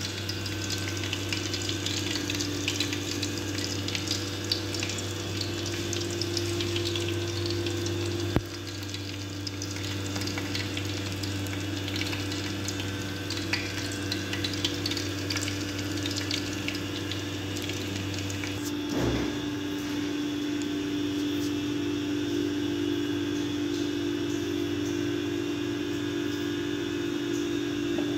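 Grouper frying in shallow oil in a nonstick pan, sizzling and crackling throughout over a steady low hum. A sharp click sounds about eight seconds in and a dull thump a little past the middle.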